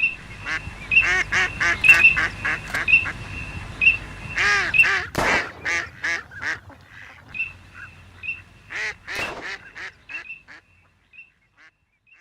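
Live decoy hen duck quacking in a fast, loud run of calls, then fewer, spaced quacks that die away near the end.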